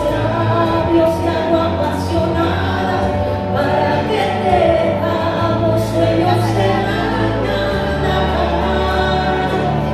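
A man and a woman singing a duet into microphones over instrumental accompaniment, with held notes and a steady bass line that shifts to a new note near the end.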